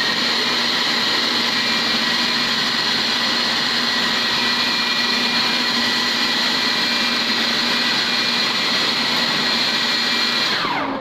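Anex electric food processor running at full speed, its motor whining steadily as the blade grinds a thick cooked kabab mixture. The motor winds down near the end.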